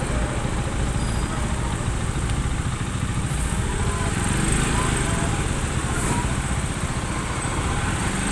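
Small motorcycle's engine running at low speed while filtering through slow traffic, with steady road and wind noise.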